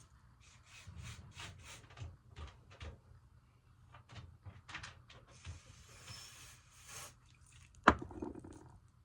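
Hands handling a lace-front wig and hair products: rubbing and small knocks, a hiss of about a second and a half about six seconds in, like a short aerosol spray, then one sharp knock near the end that is the loudest sound.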